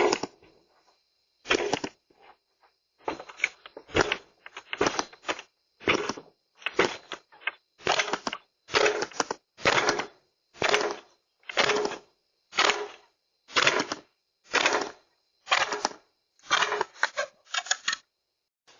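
Repeated banging on a front door, about one blow a second, each with a short rattle, heard through a video doorbell's microphone.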